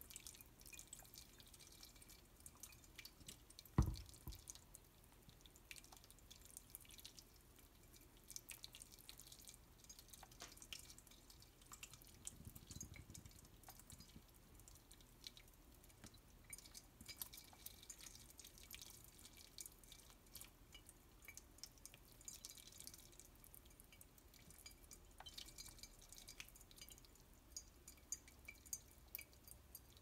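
Boiling water trickling from a kettle spout over an emu eggshell and dripping into a sink, faint, with many small scattered drips. One dull thump about four seconds in.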